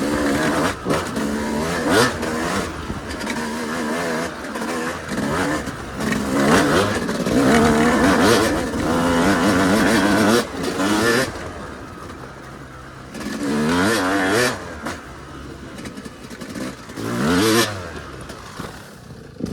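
Yamaha YZ250 two-stroke dirt bike engine being ridden hard: repeated bursts of throttle where the pitch climbs sharply, then drops back as the throttle is closed, with a few quieter stretches off the throttle in between.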